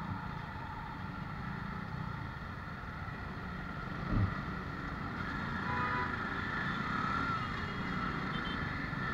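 Traffic noise in a slow city jam: motorcycle and auto-rickshaw engines running at low revs close by, a steady low rumble, with a brief thump about four seconds in.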